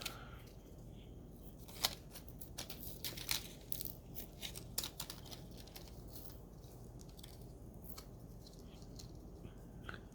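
Small sharp clicks and scratchy handling noises of batteries being fitted into a mini pistol laser sight, with the sharpest click about two seconds in and a run of clicks a little later, thinning out toward the end.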